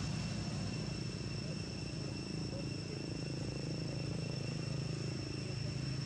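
Insects calling in a steady, high, unbroken drone, over a low steady rumble.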